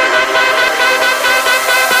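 Background music: an upbeat electronic track with a fast repeating pulse of synth notes.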